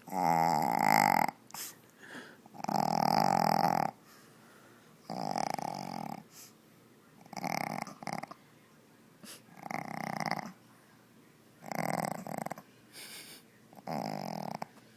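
Shih Tzu snoring: seven rasping snores about two seconds apart, each lasting about a second, the first two the loudest. The snoring comes from the breed's short snout, which leaves her barely able to breathe.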